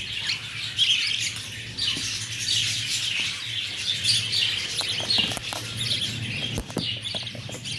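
A group of lovebirds chirping and chattering non-stop in quick, high, overlapping calls, with a few sharp clicks in the second half.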